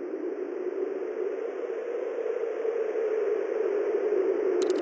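A steady rushing noise swell, centred low, that grows steadily louder and sinks slightly in pitch, an edited-in transition effect under a timelapse; a few quick, faint clicks come in right at the end.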